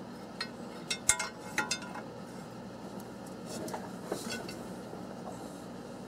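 Light metallic clinks of a steel bar against bolts in the crankshaft hub as the Chevy 350's crank is rocked back and forth to check the new double-roller timing chain for slack. Most of the clinks fall in the first two seconds, with a few more about four seconds in.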